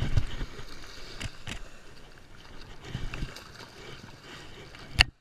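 Shallow surf washing and splashing around feet at the water's edge, with a hard thump at the start, a few knocks in the middle and a sharp click near the end.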